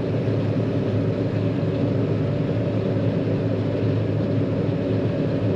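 John Deere 9500 combine running steadily under load while harvesting wheat: an even drone of the engine and threshing machinery.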